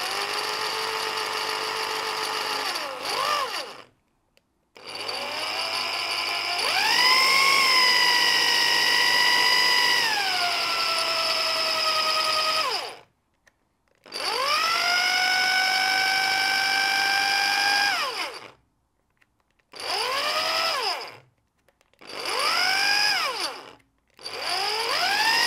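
A corded Black & Decker drill spins a CNC machine's ball screw through a coupling, driving the X-axis carriage. There are six runs of a few seconds each, with short pauses between. In each run the motor whine rises as the drill speeds up, holds steady and falls away as it stops. The longest run speeds up further partway through, then slows before it ends.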